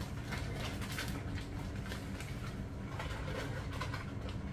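Plastic bag of shredded cheese crinkling and rustling in short scattered bursts as it is shaken and handled, over a low steady hum.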